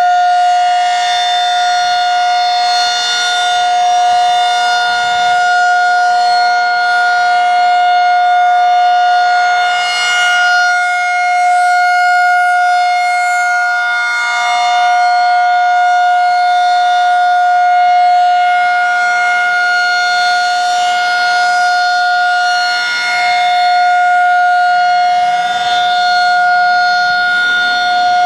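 Federal 2001-SRN electromechanical outdoor warning siren sounding a loud, steady single tone at full pitch, its loudness swelling and fading a little as it rotates.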